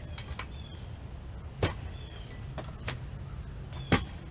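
Manual clamshell post-hole digger jabbed into the soil, its blades striking with sharp thuds about a second apart, the last the loudest, as they hit a tree root in the hole.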